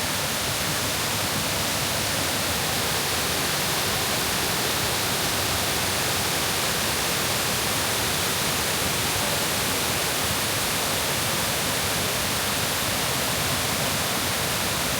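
Steady, even rush of waterfall cascades pouring over limestone steps.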